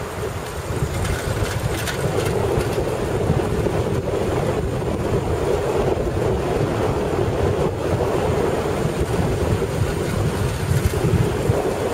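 Steady rush of wind buffeting the camera's microphone on a fast downhill bicycle ride.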